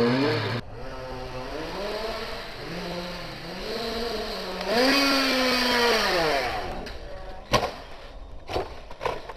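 Radio-controlled buggy's motor revving up and down in several rising and falling sweeps as it drives. Near the end come a few sharp knocks as the buggy hits the ground and tumbles.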